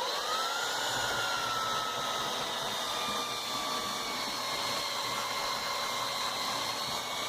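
Belt sander motor spinning up to a steady whine right at the start, its pitch then easing down a little and holding.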